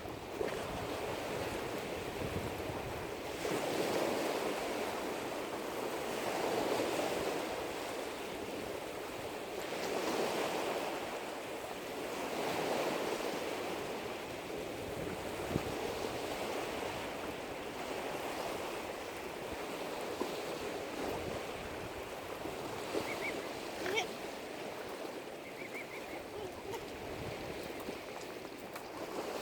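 Small waves lapping at a lake shore, the wash swelling and fading about every three seconds. A few short high chirps come near the end.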